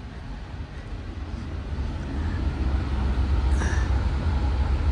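QuietCool QC ES-7000 whole house fan running on high, heard below its ceiling intake grille: a steady low rush of air that grows louder about two seconds in as the microphone nears the grille.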